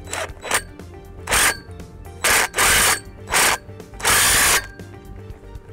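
Cordless impact driver tightening the bolt of a steel brace bracket on a fence post, in five short bursts over about three seconds.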